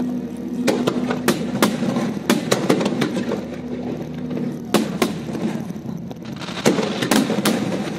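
Fireworks display: aerial shells bursting overhead in quick clusters of sharp bangs and crackles, with the loudest reports about five and seven seconds in.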